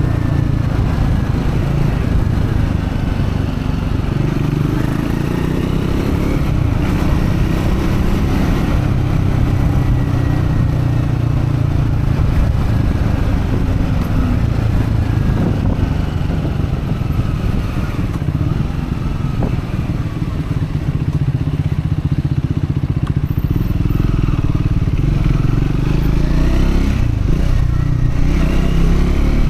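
Triumph Scrambler 400X's single-cylinder engine running steadily while ridden, its note rising and falling gently with the throttle; the engine is new and being run in.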